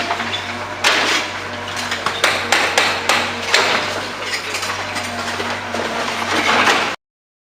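Irregular knocks and clinks of hard objects, several a second at times, over a steady low hum; the sound cuts off abruptly near the end.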